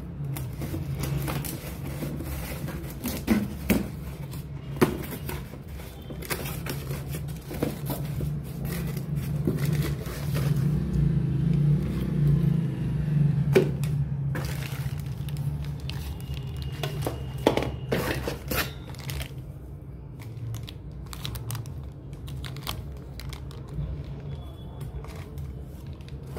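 Packing tape being peeled and torn from a cardboard box and the cardboard flaps scraping open, then clear plastic wrapping crinkling as the wrapped contents are handled and lifted out. The noises come as many short, irregular rustles and tears over a steady low hum.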